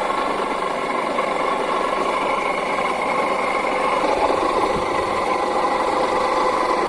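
3 HP three-phase monoblock water pump running steadily with a buzz-buzz sound, which the electrician puts down to air being drawn in.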